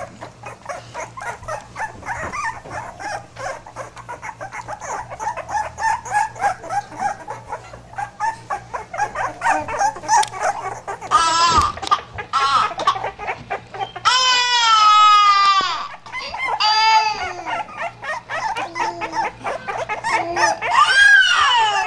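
Pitbull puppies yelping and whining in quick, high cries while they wrestle, with a longer whine about 14 seconds in that falls in pitch.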